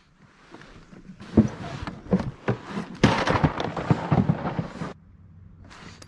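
Handling noise in a plastic fishing kayak: a few hard knocks and thumps, then about two seconds of dense scraping and rustling shot through with more knocks, which stops abruptly.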